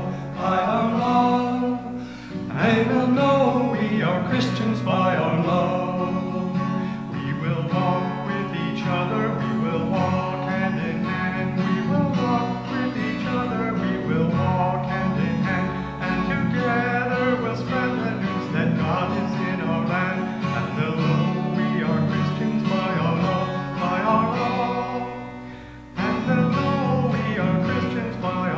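Acoustic guitar played as accompaniment to a man singing a hymn. The music drops away briefly near the end, then starts again.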